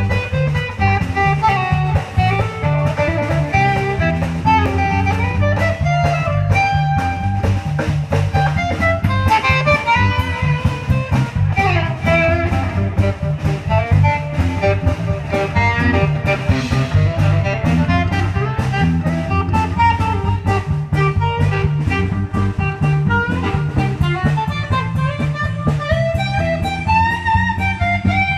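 Live band playing an instrumental with electric guitar lines over bass guitar and a drum kit keeping a steady beat.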